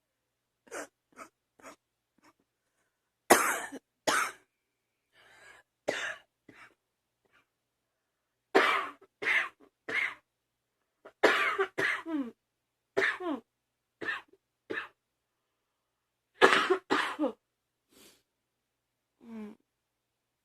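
A girl coughing repeatedly, in several short bouts of two to four coughs each with silent gaps between them; the loudest bouts come about three seconds in and around the middle.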